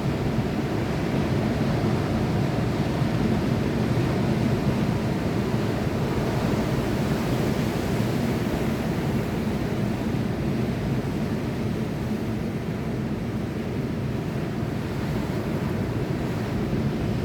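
Sea surf: a steady rushing wash of waves with a deep rumble, swelling slightly about four seconds in and easing a little later on.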